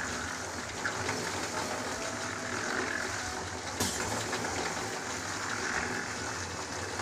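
Portable drum concrete mixer running steadily: a low machine hum under a noisy hiss, with one sharp knock a little under four seconds in.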